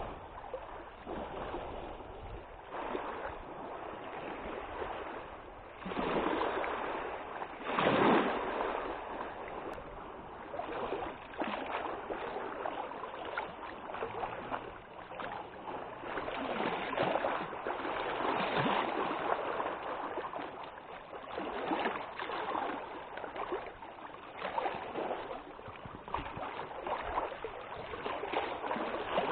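Small waves on a lake lapping and splashing, in irregular surges every second or two.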